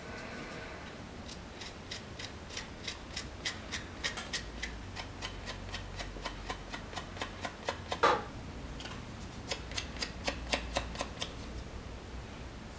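A metal knife blade scraping a small porcelain clay stone in short, sharp strokes, about three or four a second, with one longer, louder scrape about eight seconds in. The blade is scraping back the black slip around an incised rune.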